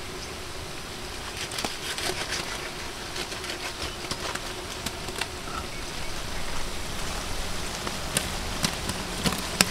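Onion masala frying in a large metal pot over a wood fire: a steady sizzle with scattered pops and crackles.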